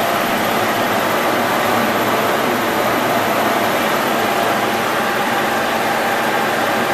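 Stanko 6T12 milling machine running at 200 rpm, its face mill on the horizontal spindle taking a 1 mm cut across cast iron. Steady, even noise of motor, gears and cutter, with a few faint steady tones over it.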